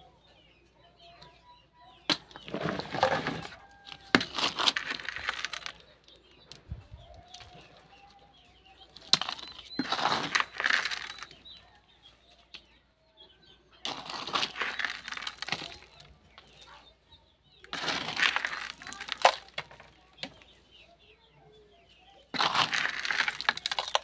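Damp soil with gravel being scooped and pressed around the base of small trees, in six scraping, crunching bursts of a second or two each.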